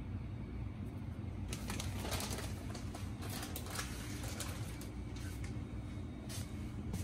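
A steady low hum, with crinkling and rustling from about one and a half to four and a half seconds in as a plastic bag of shredded cheese is handled.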